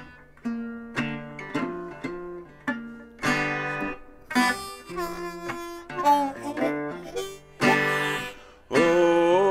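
Archtop guitar played with a metal slide in a blues instrumental break: a run of picked notes with held, ringing tones and pitches sliding between notes.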